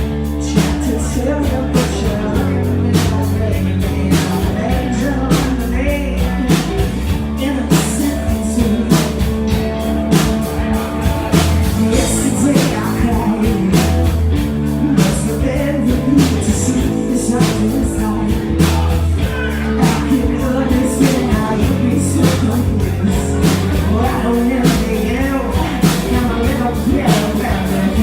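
Live rock band playing, with drums keeping a steady beat.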